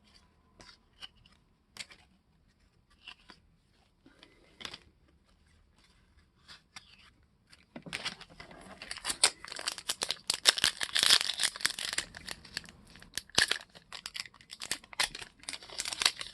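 Trading card pack wrapper being torn open and crinkled. The first half has only scattered light clicks and rustles of handling; about halfway in, a dense run of crackling and tearing begins and carries on to the end.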